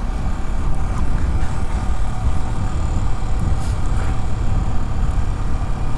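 Yamaha R15's single-cylinder engine running steadily while the motorcycle is ridden, under a steady low rumble of wind and road noise.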